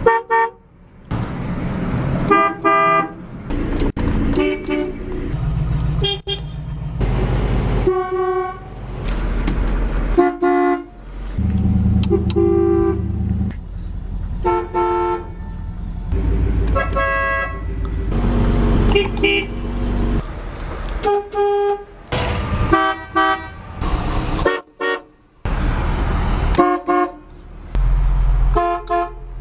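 Classic car horns sounded in a run of short honks and a few longer blasts, one car after another, each a steady buzzing tone with many overtones. A low rumble sits beneath the honks, with abrupt changes where one car's clip gives way to the next.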